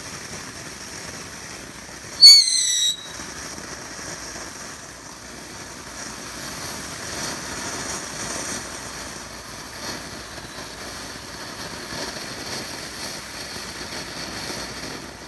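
Ground fountain firework spraying sparks with a steady hiss and crackle. About two seconds in, a loud, shrill whistle cuts through for under a second.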